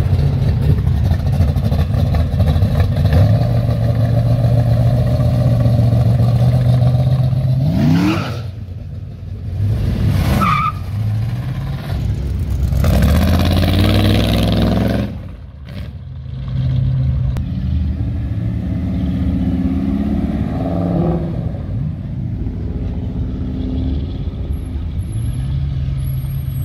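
Cars driving past one after another, engines running low and rising in several revs as each pulls away. The loudest rev comes about halfway through, as a black hot rod coupe accelerates past.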